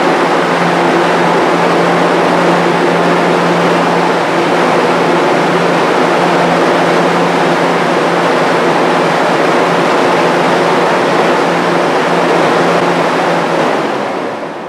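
Restored Jenny explosion-proof exhaust fan running steadily: the electric motor's hum under the rush of air from the spinning blades. Near the end it is unplugged and begins to spin down, the sound fading.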